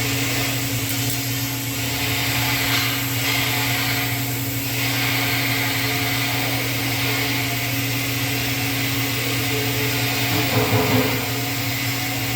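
TIG welding on 304L stainless steel: a steady arc hiss over the welding set's constant electrical hum, with a brief louder, rougher patch near the end.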